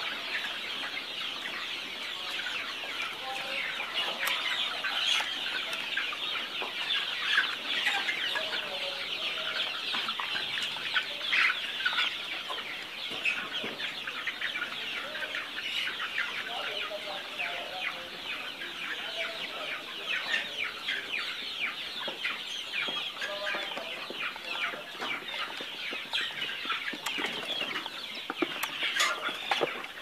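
A large flock of young chickens in a poultry house calling without a break: a dense chorus of many overlapping short, high calls.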